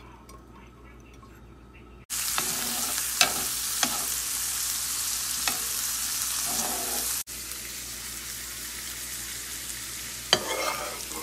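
Diced onions frying in a pan, starting suddenly about two seconds in: a loud, steady sizzle with the clicks and scrapes of a spatula stirring them. About seven seconds in it cuts to a quieter sizzle of minced garlic frying in oil.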